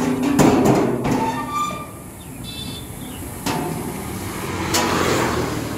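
Steel rear cargo doors of a closed-body electric loader rickshaw being shut and locked: a loud metallic clank right at the start, then rattling and ringing metal, with further sharp knocks about three and a half seconds in and near the end.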